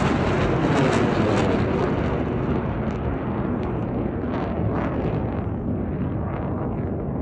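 Jet aircraft that has just passed overhead, its loud roar slowly fading as it flies away.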